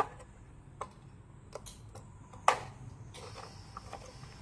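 A handful of sharp little plastic clicks as wire-harness connectors are handled and pushed into their sockets on a robot lawn mower's main circuit board. The loudest click comes about two and a half seconds in.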